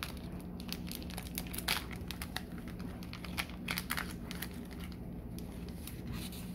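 Foil trading-card booster pack wrapper crinkling as it is handled and torn open by hand, a rapid string of sharp crackles that thins out about five seconds in.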